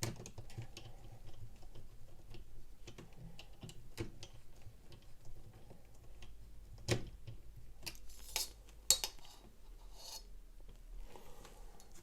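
Small, irregular clicks and taps of laptop parts being handled, with a sharper click about seven seconds in and a brief scraping rustle after it.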